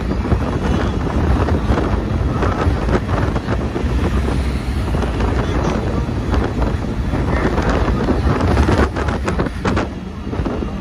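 Wind buffeting the microphone over the steady road and tyre noise of a car driving at speed, with a few harder buffets about nine seconds in.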